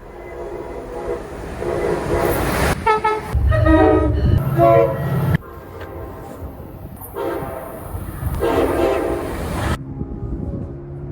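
Train horn sounding a chord of several tones in a series of blasts, the last one long and cutting off with about a second to go. A deep rumble swells under the horn in the middle.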